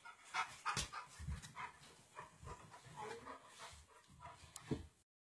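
A Rottweiler's small excited sounds and snuffles as it greets and pushes against a person, with rustling and a few sharp clicks; the sound cuts off abruptly about five seconds in.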